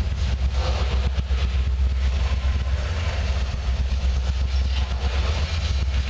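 Freight train of loaded coal cars rolling past: a steady low rumble of steel wheels on rail, with scattered clacks.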